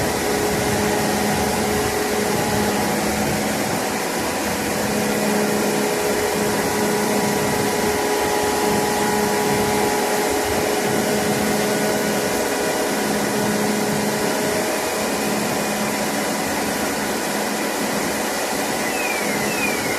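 KZS-812 combine harvester running steadily under its D-260 inline-six diesel, a constant machine drone with a steady hum.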